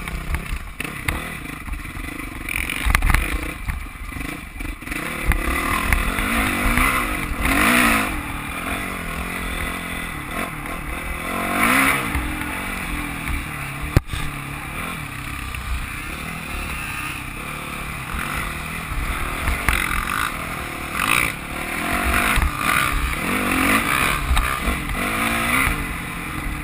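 Dirt bike engine running under load as it is ridden over rough ground, its revs climbing and dropping again and again as the rider works the throttle and gears, with heavy low rumble on the microphone and rattle from the bike over the bumps.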